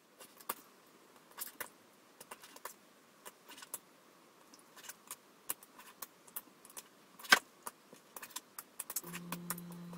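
Knife blade tapping and clicking on a plastic cutting board as raw chicken livers are cut in half: light, irregular taps with one sharper knock about seven seconds in. A low steady hum comes in near the end.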